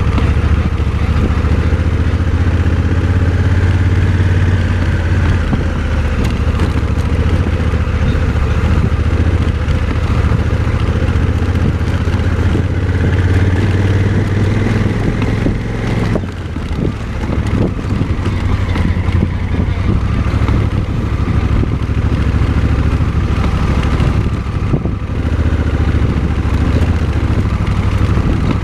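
Motorcycle engine running steadily while riding, easing off briefly a little past halfway before picking up again.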